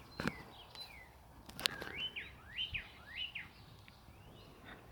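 Birds chirping: a quick run of short chirps between about one and a half and three and a half seconds in, with a few faint clicks.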